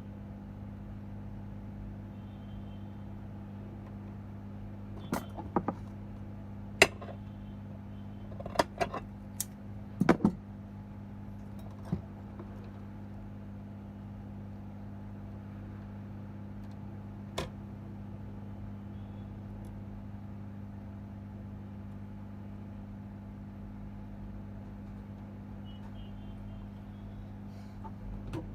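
A steady low electrical hum with a scattering of sharp clicks and taps, about ten of them, mostly in the first half, like small tools being handled on a repair bench.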